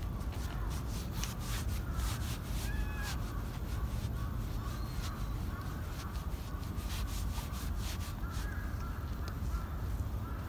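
A hand stroking a cat's fur close to the microphone, making a scratchy rustling with many small clicks over a steady low rumble. Short bird calls sound now and then in the background.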